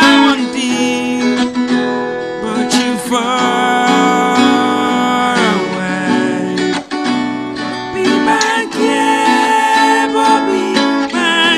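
A song: guitar accompaniment under a singing voice that holds long, wavering notes.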